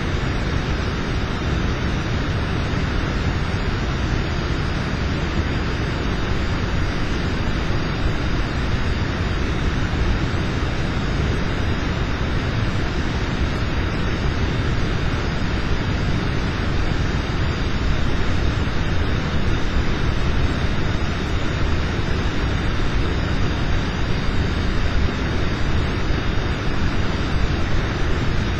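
Steady hiss and low rumble with no distinct events, with two faint steady high tones running through it.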